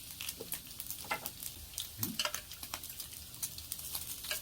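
Food sizzling in a hot pan, a steady hiss with many small crackling pops.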